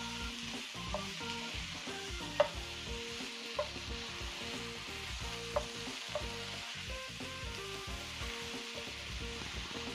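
Mixed vegetables sizzling in oil and butter in a skillet as they are stirred with a wooden spoon. A few sharp clicks of the spoon against the pan sound over the steady sizzle, the loudest about two and a half seconds in.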